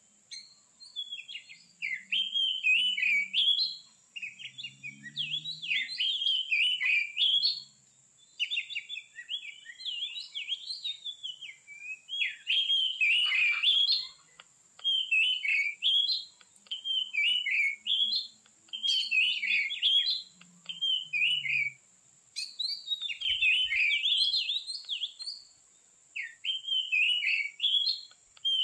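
Oriental magpie-robin (kacer) singing: bursts of quickly varying whistles and chatters, each one to two seconds long with short pauses between them, its song full of mimicked phrases.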